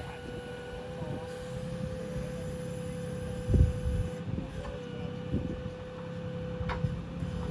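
Boom truck's crane running: a steady mechanical tone over a low engine rumble, with a few short knocks, the loudest about halfway through.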